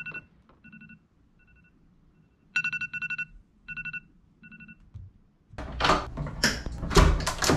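A smartphone alarm beeping in short repeated bursts of one high tone, softer about a second in, louder again after two and a half seconds, and stopping about five seconds in. Then a door's metal lever handle and latch clatter as the door is opened, with a loud knock about seven seconds in.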